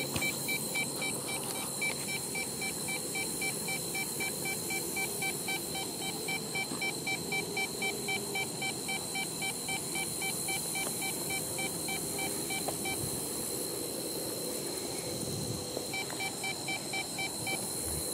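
Ghost Meter EMF detector going off: a fast, even string of electronic beeps that stops about two-thirds of the way through and then starts again briefly near the end. The alarm signals a high electromagnetic-field reading, with the needle in the red.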